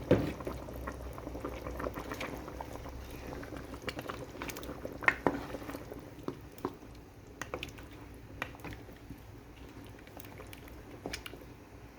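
Pot of lamb broth boiling and bubbling as washed basmati rice goes in, with a few sharp clicks scattered through it; the bubbling gradually gets quieter.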